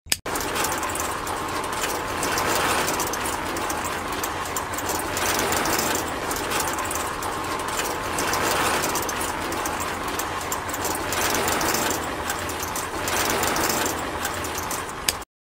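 Small electric motor and gears turning a miniature concrete-mixer drum. It is switched on with a click at the start and cuts off with a click near the end, and it swells and fades about every three seconds as the drum turns.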